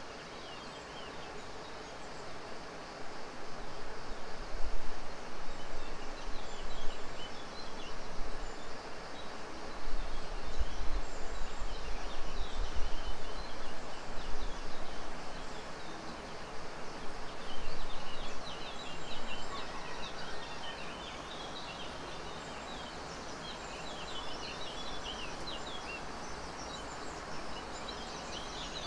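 Outdoor ambience with many small birds chirping, dense at times, over a steady noise floor. Swells of low rumbling noise come and go through the first half and fade out by about two-thirds of the way through.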